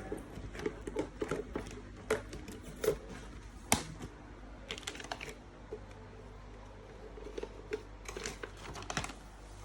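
Hands unpacking a boxed Radeon Pro W5700X GPU module from its packaging: scattered clicks, taps and rustles, with one sharp knock about four seconds in and a cluster of clicks near the end.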